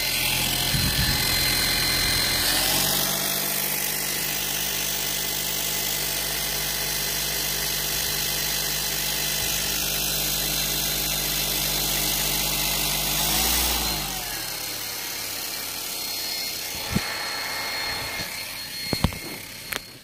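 Harbor Freight bench grinder/polisher motor running under an added variable speed controller, its hum changing pitch as the dial is turned: it steps up a few seconds in, wavers past the middle and drops lower near the end, with a few clicks.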